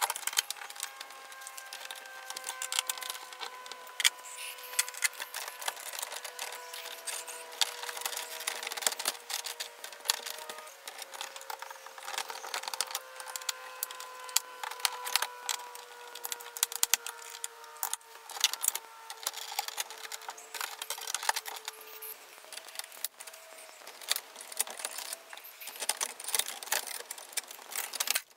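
Screwdriver and bare copper ground wires being worked in a metal breaker panel: frequent small metallic clicks, taps and scrapes as screws are turned and wires moved from the neutral bus to a separate ground bus bar.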